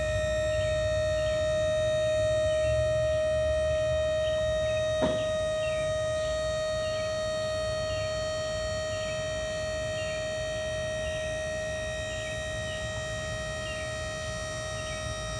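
12-volt double-acting KTI hydraulic power unit running with a steady high whine over a low rumble, powering a trailer's tilt frame down. There is a single sharp click about five seconds in.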